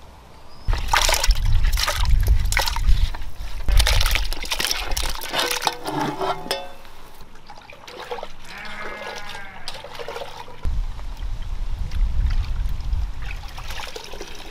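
Water pouring and splashing in two spells, the second starting about ten seconds in, with bleating in the quieter stretch between them.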